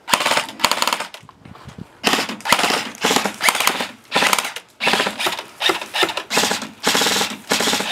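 Airsoft rifles firing rapid full-auto bursts, a fast clatter of shots. About half a dozen short bursts, each under a second, with brief pauses between them.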